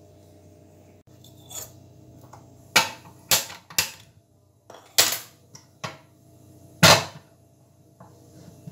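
Several sharp clicks of a hand-held spark gas lighter lighting a gas stove burner, then a heavier knock as a lidded metal pan is set down on the stove.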